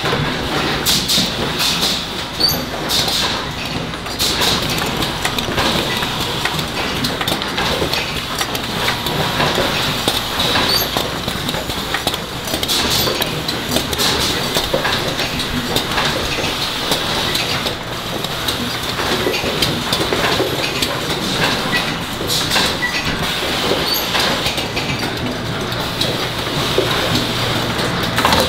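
Oil filter assembly line running: a steady machine din from conveyors and presses, with frequent metallic clicks and clanks.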